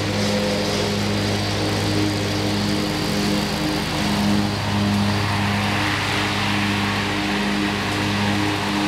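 Commercial walk-behind lawn mower with a stand-on sulky, its engine running steadily as it mows past close by.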